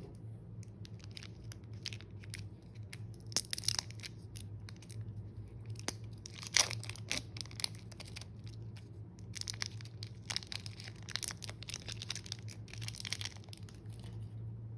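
Slime being squished and mixed by hand, giving bursts of crackling and popping with quieter stretches in between. A steady low hum runs underneath.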